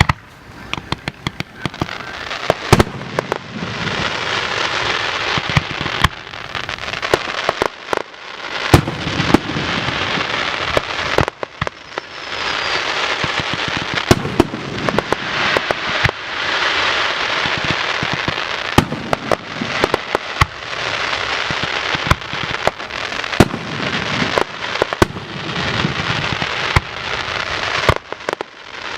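Fireworks display: a few separate sharp bangs, then from about three seconds in a dense, continuous crackle of bursting shells with many loud bangs on top. The crackle eases briefly twice, near the middle and near the end.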